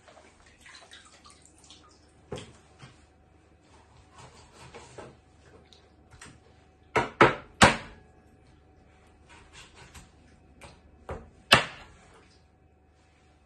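Kitchen knife knocking on a wooden cutting board while raw chicken thighs are cut up: three sharp knocks in quick succession about seven seconds in, one more near the end, with lighter taps and handling between.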